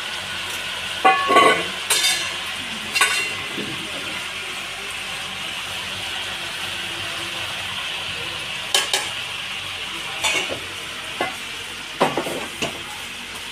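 Chicken frying with spices in a pan, a steady sizzle, while a spoon stirs it and scrapes and knocks against the pan now and then.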